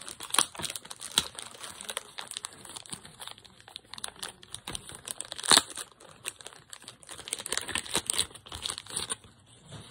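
Clear plastic wrapping crinkling and crackling as hands unwrap a small cardboard toy box, in irregular bursts with one louder sharp crackle about five and a half seconds in; the crinkling stops near the end.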